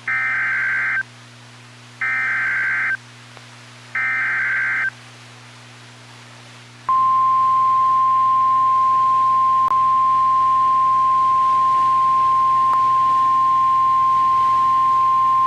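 NOAA Weather Radio Emergency Alert System activation. Three one-second bursts of SAME digital header data come a second apart, then about two seconds later the steady single-pitch 1050 Hz warning alarm tone starts and holds. This sequence marks the start of a new warning broadcast, here a severe thunderstorm warning.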